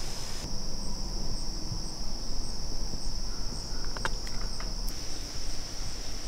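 Insects chirring in one steady high-pitched drone, with a few faint clicks about four seconds in, over a low rumble.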